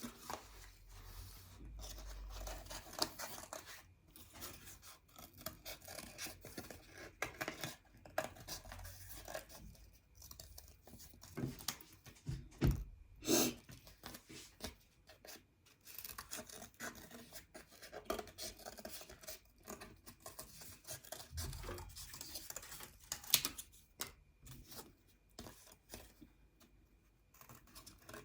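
Faint paper-craft handling: paper or card rustling and scraping, with scattered small clicks, as cucumber shapes are made for a model food plate.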